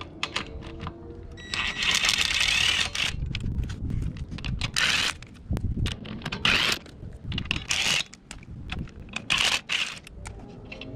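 Ryobi three-speed cordless impact wrench (rattle gun) hammering the wheel nuts loose: one burst of about a second and a half about two seconds in, then four shorter bursts, one per nut, with small clicks of the socket between.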